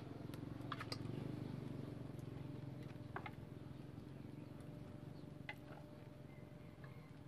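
Low, steady rumble of a pot of Pepsi at the boil over a wood fire, a little louder in the first couple of seconds, with a few light clicks of chopsticks on the plate and pot as pieces of pork belly are put in.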